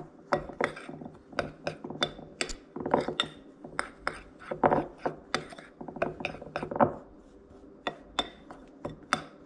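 Metal spoon stirring dry almond flour and powdered sugar in a glass bowl, clinking and scraping against the glass about twice a second.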